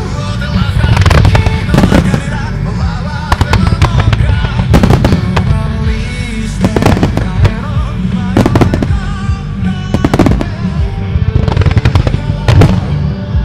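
Starmine fireworks barrage: shells bursting one after another, roughly once a second, with deep booms and crackle, over loud music playing throughout.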